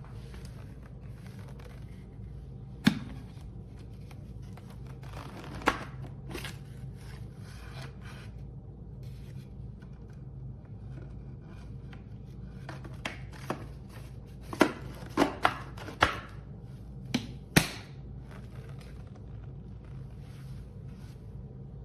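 A steady low hum with a scattered run of sharp clicks and knocks, most of them bunched together about two-thirds of the way through.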